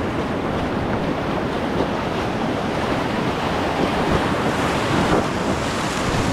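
Whitewater of a river rapid rushing, a loud and steady noise with no break, at a flow of about 1600 cubic feet per second.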